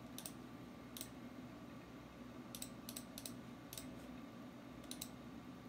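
Computer mouse button clicking: a scattered series of short, sharp clicks, some in quick pairs, as the Control Panel list is scrolled and the Rocket's Master Switch is clicked off. A faint steady hum sits underneath.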